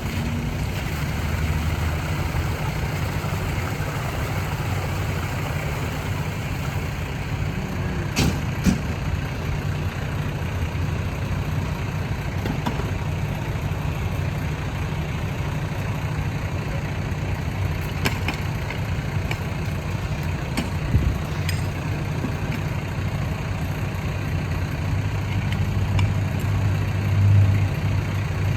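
Fire truck's diesel engine idling with a steady low rumble, a few sharp clicks scattered through it and a brief swell in the engine note near the end.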